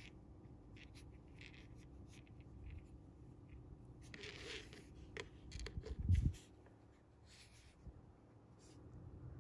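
Fingers handling and twisting monofilament fishing line while tying a knot: faint rustling, scraping and small clicks, with a louder low bump about six seconds in.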